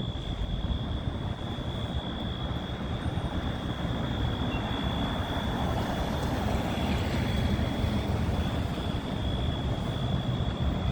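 Fire truck's diesel engine running, with a steady high-pitched tone from the building's fire alarm sounding over it.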